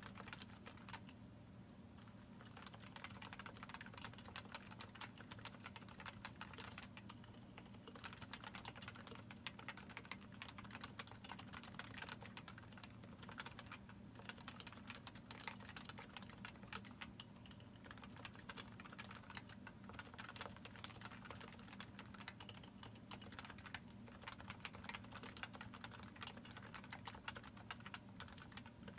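Typing on a Leopold FC660C Topre electrostatic-capacitive keyboard with variable-weight keys, PBT keycaps and unlubricated sliders and stabilizers. Keystrokes come in a fast, continuous stream, with a few short pauses.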